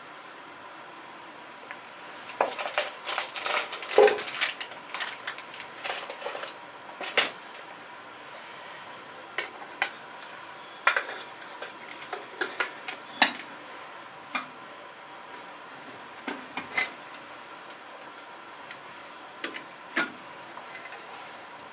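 Metal camping cookware being handled on a table: a small kettle and a nested pot set clinking and knocking. There is a quick run of clatter a couple of seconds in, then scattered single knocks.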